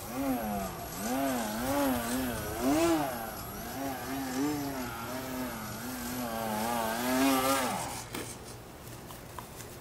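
Battery-powered Yak 55 foam RC airplane's motor and propeller buzzing in flight, the pitch rising and falling again and again with throttle and passes. It cuts out about eight seconds in.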